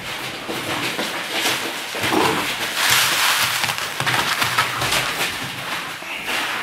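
Golden Retriever puppies digging and rooting in loose litter: busy rustling and scratching, loudest about three seconds in.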